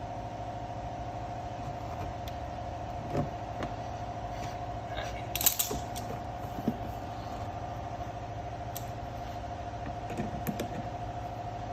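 Scattered clicks and knocks of the door handle and its plastic and metal parts being worked loose and pulled out of a car door, loudest in the middle, over a steady hum.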